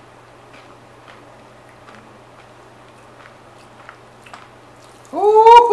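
Faint, scattered crackling ticks from Pop Rocks candy popping in a man's mouth along with Coke. Near the end he makes a loud voiced sound that rises in pitch.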